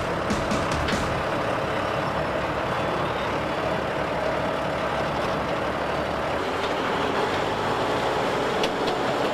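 Heavy construction machinery running steadily, with a few sharp metallic clicks near the start and again near the end.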